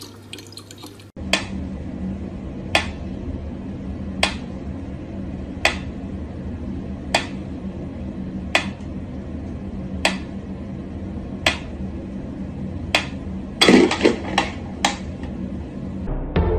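Mechanical pyramid metronome ticking slowly and evenly, about one tick every second and a half. A quick flurry of louder knocks comes near the end.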